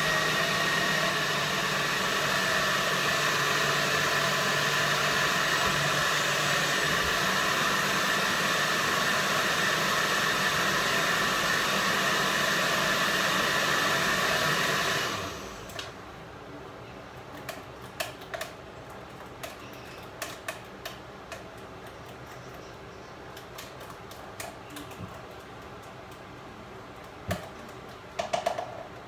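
Countertop blender running steadily for about fifteen seconds as it blends a smoothie, then switched off abruptly. Afterwards only light clicks and knocks of things being handled on the counter.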